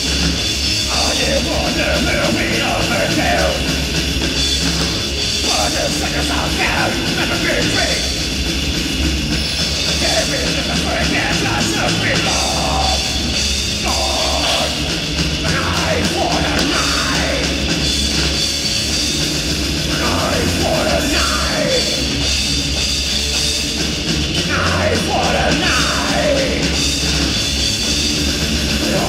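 Live heavy metal band playing loud and without a break: distorted electric guitars, bass and drum kit, picked up by the camera's own microphone rather than the mixing desk.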